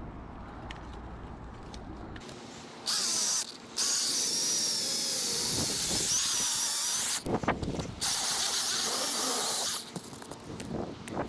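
A power saw cutting a tree branch, running in three stretches with short pauses, a high wavering whine as it cuts.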